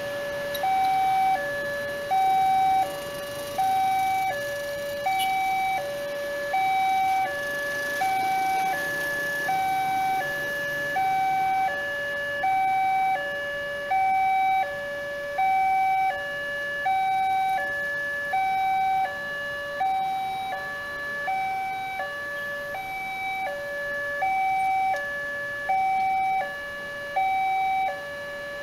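Railway level-crossing warning alarm sounding: an electronic signal alternating steadily between a higher and a lower note, each about half a second. It signals that a train is approaching and the crossing barriers are closed.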